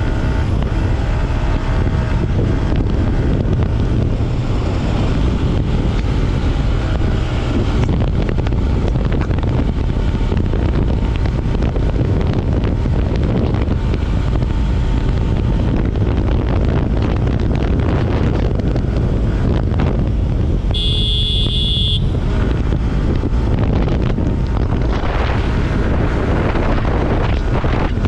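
Wind buffeting an action camera's microphone on a Yamaha R15 V4 ridden at highway speed, with the bike's single-cylinder engine running underneath. About three-quarters through, a short high-pitched tone sounds for about a second.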